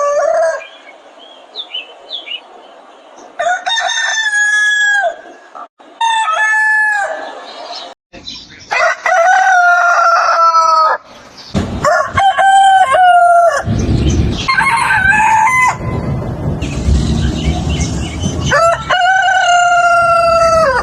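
Several different roosters crowing one after another, about six crows in all, each lasting one to two seconds and falling in pitch at the end, in short recordings cut together. A low rumbling noise sits under the later crows.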